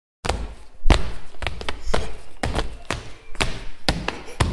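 Children hopping on a floor: a steady run of heavy footfall thuds, about two a second.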